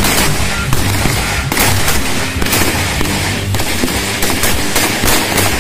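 Pindad SS2 V4 5.56 mm assault rifles firing from several shooters on a range, sharp shots coming irregularly at about two a second, over background music.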